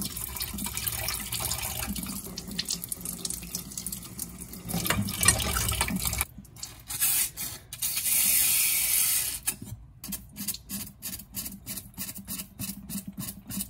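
Kitchen tap running into a stainless steel sink as water is flushed through a vintage fountain pen's section. About six seconds in the flow breaks into stop-start bursts, one a bright hiss, and then gives way to short, evenly spaced ticks, about three a second.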